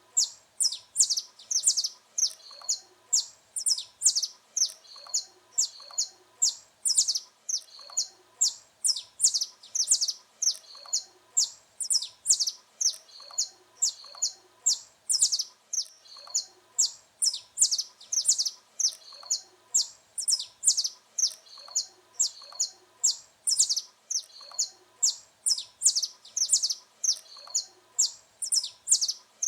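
Saffron finch (canário-da-terra) singing: a steady string of short, high, sharp chirps, about two a second.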